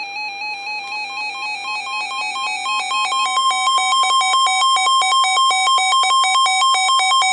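Electronic beeping tones between two spoken weather alerts: a slow back-and-forth between two close pitches, joined about a second in by a faster back-and-forth pattern on two other notes. The faster pattern grows louder from about three seconds in and becomes the loudest sound.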